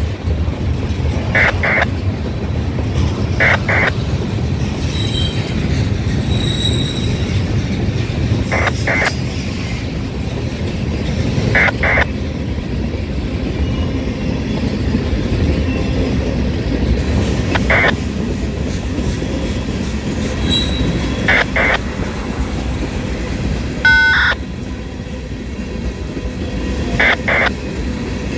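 Freight train of flatcars and tank cars rolling past: a steady rumble of steel wheels on rail, with paired clicks every few seconds as each car's wheel sets cross a rail joint. A short, high wheel squeal comes about three-quarters of the way through.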